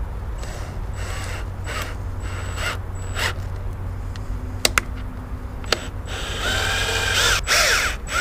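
Cordless drill-driver driving a screw through a light's mounting bracket into a fiberglass boat pulpit. It runs in several short trigger bursts, then gives a few sharp clicks, then one longer run near the end with the motor's pitch rising and falling.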